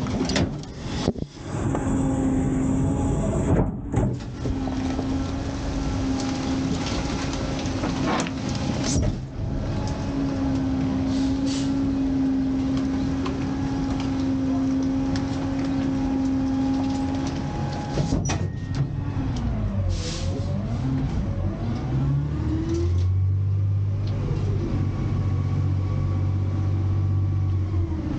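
McNeilus rear-loader garbage truck running a packing cycle: the hydraulic packer panel sweeps and crushes bags of trash out of the hopper, with a steady hydraulic whine and metal clanks and crunches. About two-thirds of the way through the pitch sweeps down and up several times as the panel changes stroke, then settles into a lower steady hum.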